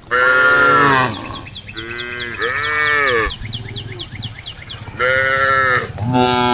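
Cattle mooing: about five loud calls in a row from the herd, several of them falling in pitch at the end. A quick run of high chirps sounds between the first calls.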